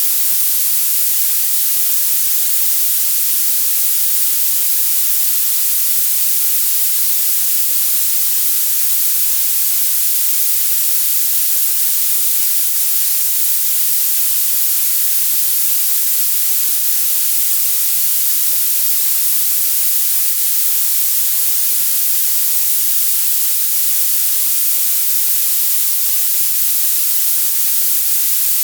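Synthesized violet noise: a steady, bright hiss, strongest in the highest frequencies and almost nothing in the lows, unchanging throughout.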